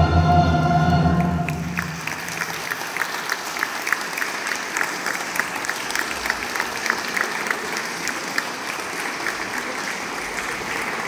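Mixed choir holding a final chord that cuts off about a second and a half in, followed by steady audience applause.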